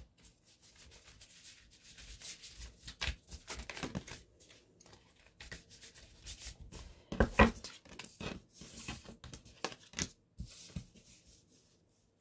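Cartomancy cards being shuffled and handled: card stock rubbing and scraping in irregular flurries, with a few sharper slaps, the loudest a little past seven seconds in.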